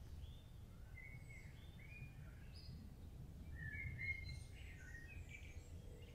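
Songbirds chirping and whistling in short phrases, busiest about halfway through, over a low steady background rumble.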